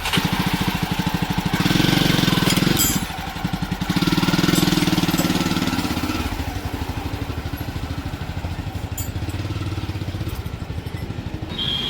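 Jawa 42's single-cylinder motorcycle engine running. It swells twice in the first five seconds as it is revved, then settles to a steady idle.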